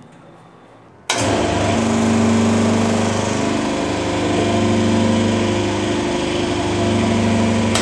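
Universal testing machine's hydraulic pump motor switched on about a second in, then running with a loud, steady hum as load is applied to a brass rod in single shear.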